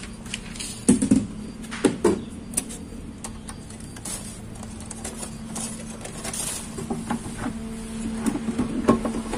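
Hard plastic panels of an Olymplast ODC 03 M drawer cabinet knocking and clattering as they are handled and fitted together. There are a few sharp knocks about one and two seconds in, with lighter taps throughout.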